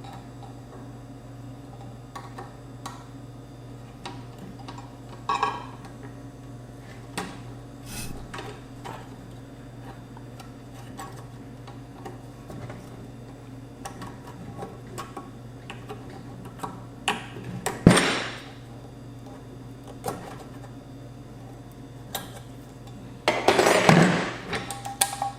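Scattered clicks and knocks of metal parts being handled as a car amplifier is taken out of its aluminum case, with one louder knock about two-thirds of the way through and a burst of rattling near the end.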